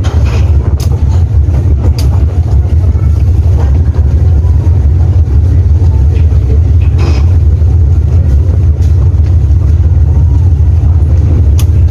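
Engines of a docked passenger ferry running at the berth: a loud, steady low rumble, with a few short knocks and clanks.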